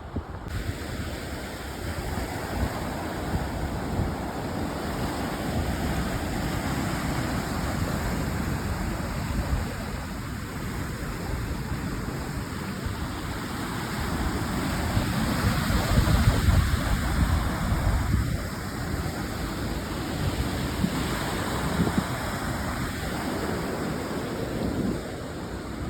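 Strong wind buffeting the microphone in rumbling, rushing gusts, loudest about two-thirds of the way through.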